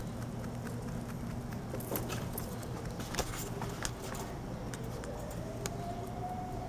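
Steady low background hum with scattered sharp clicks and taps, and a faint drawn-out tone that rises and then falls about five seconds in.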